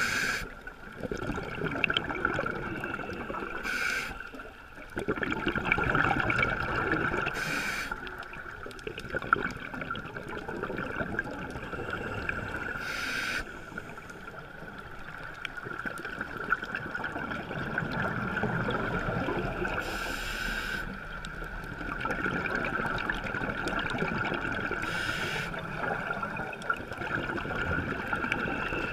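Scuba diver breathing through a regulator underwater: a short hiss of inhalation about every four to seven seconds, with rumbling, gurgling exhaled bubbles between them, over a steady high hum.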